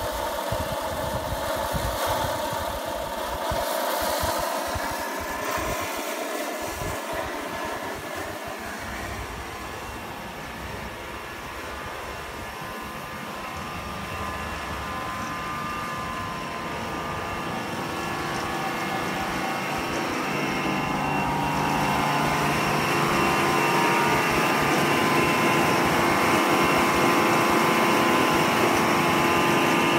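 Pneumatic rice-husk conveyor running: the blower hums steadily with a whine over the rush of air and husk through the suction hose, growing louder over the second half.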